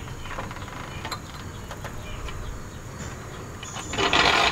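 Hydraulic floor jack being let down slowly under a car's rear suspension, mostly faint with small clicks, then a louder burst of noise about four seconds in.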